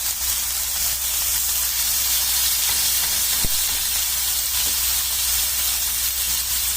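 Buttered pineapple pieces sizzling on a hot dosa griddle: a steady frying hiss as they toast.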